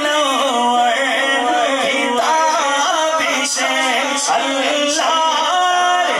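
A man singing an Urdu naat unaccompanied into a microphone: long held notes with ornamented, wavering turns of pitch.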